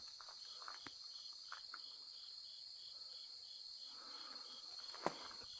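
Faint insects chirping at night, a steady high trill with a second call pulsing about four or five times a second, and a few small clicks.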